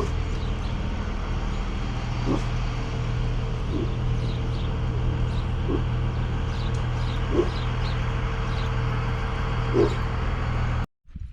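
Steady engine and road noise inside a moving vehicle, with a dog giving about six short whines spread through it. The sound cuts off suddenly near the end.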